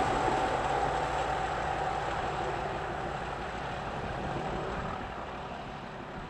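Class 37 diesel locomotive on the rear of a passing train, its English Electric V12 engine growling under power and fading steadily as it draws away down the line.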